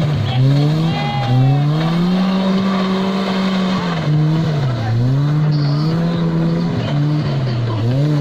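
Suzuki Vitara 4x4 engine revving hard and easing off again and again, its pitch rising and falling several times, as the vehicle works under load through a deep mud pit.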